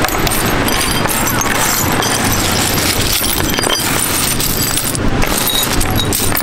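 Broken green bottle glass shards clinking and scraping as hands rake and scoop them across a wooden board, many small tinkling clicks over a steady noisy background.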